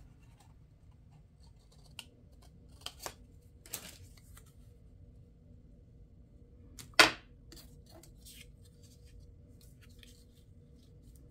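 Scissors snipping through a paper ticket stub: a few separate short snips and clicks, the sharpest about seven seconds in, over a faint steady hum.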